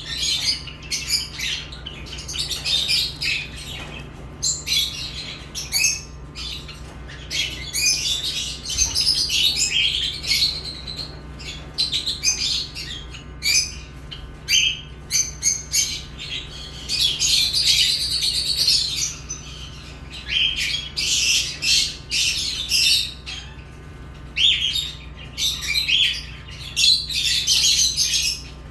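Pet lovebirds chirping and squawking in quick runs of high, shrill calls, with a longer unbroken stretch of chatter about seventeen seconds in.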